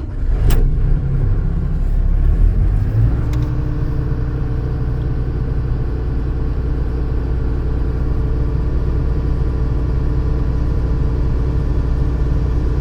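Claas combine harvester's diesel engine starting: rough and uneven for about the first three seconds, then settling into a steady run.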